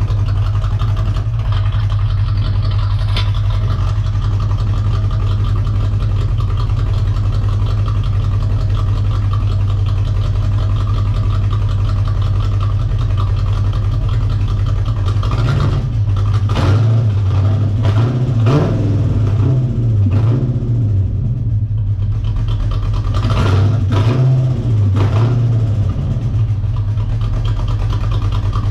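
1985 Corvette C4's 350 TPI small-block V8 idling, then revved in a series of quick blips about halfway through and again near the end. It is running poorly, which the owner puts down to the car being out of gas.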